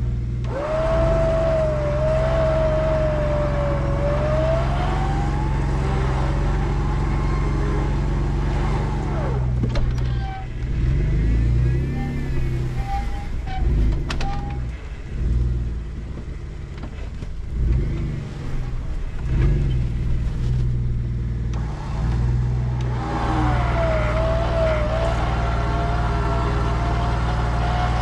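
Electric winch on an off-road recovery rig whining under load as it reels in the line on a stuck pickup truck, over a steady engine idle. The whine rises in pitch a few seconds in, stops for a stretch in the middle while other engine sounds waver, and starts again near the end.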